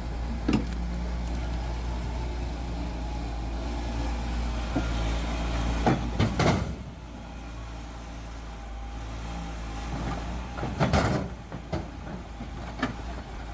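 Diesel engine of heavy construction machinery running steadily, with a few sharp knocks: one about half a second in, a cluster around six seconds and another around eleven seconds. The engine gets somewhat quieter after about seven seconds.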